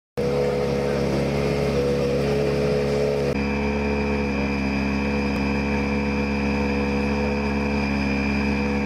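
Rally car engine idling steadily: an even, unchanging hum with a thin high whine above it, its tone shifting slightly about a third of the way in.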